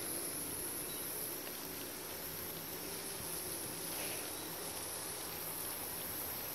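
Water spraying steadily from a garden hose nozzle up onto a long-billed corella's spread wings, a continuous hiss and patter of spray, with a constant high-pitched drone behind it.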